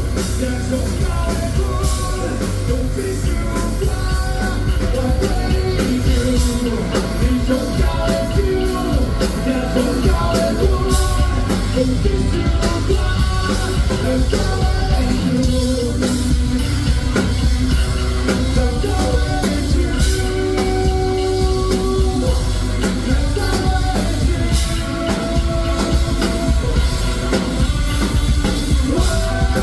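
Rock music with a sung melody over a drum kit and heavy bass, loud and unbroken throughout.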